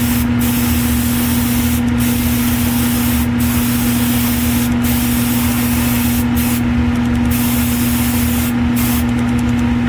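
Airbrush hissing as it sprays metallic acrylic paint onto a plastic model-car body. The hiss breaks off briefly every second or so as the trigger is let off, with a few quick stop-start breaks near the end. Under it runs a steady motor hum.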